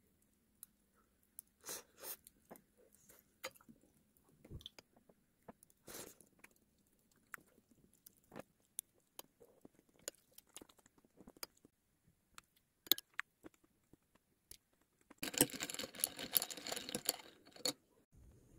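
Someone eating: quiet chewing and crunching with scattered small clicks, then a denser run of crackling about fifteen seconds in that lasts nearly three seconds.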